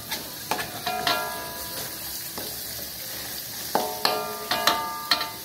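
Spice paste sizzling in a hot wok as a metal spatula stirs it. The spatula clanks against the wok in short ringing strikes, a few about a second in and a quick run of them near the end.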